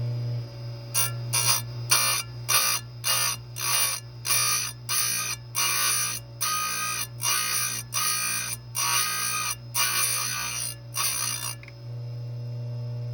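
Square-grind chain grinder working down a chainsaw chain: short grinding rasps repeated about two a second as the wheel meets one cutter after another, over a steady motor hum, stopping near the end.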